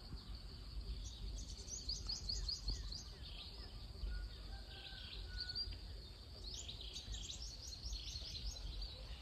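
A bird singing a quick run of high chirps, twice, over a steady low rumble of background noise.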